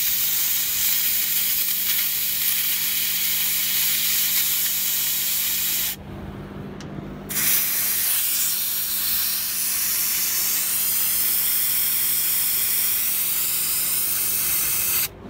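Compressed air hissing steadily out of the drain valve of a 2005 Freightliner Columbia's secondary air-brake tank, as it is bled down manually for a one-way check valve test. The hiss cuts off about six seconds in, starts again a second or so later, and stops just before the end.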